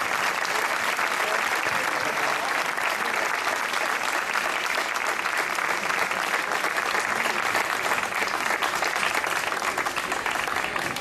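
Crowd applauding steadily: many hands clapping together without a break.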